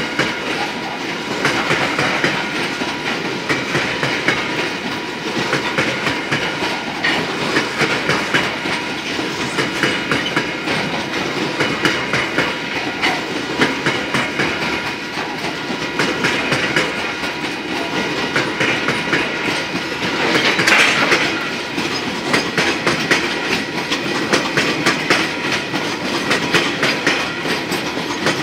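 Coal hopper wagons rolling past, their wheels clicking steadily over the rail joints with a continuous rumble and rattle. A brief louder, brighter patch comes about two-thirds of the way through.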